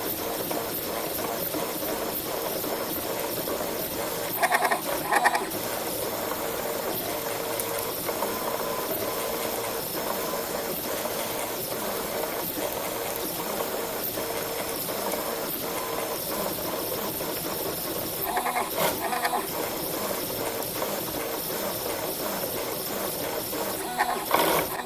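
A CNC milling machine converted to 3D printing, running steadily with a constant hum and hiss from its drives. Three times, a few seconds in, at about two-thirds and near the end, its stepper motors give out a louder, higher, bleating whine for about a second.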